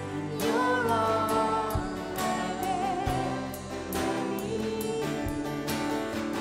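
Live worship band playing a song with singing: acoustic and electric guitars, drums and keyboard under sung vocal lines, which come in about half a second in.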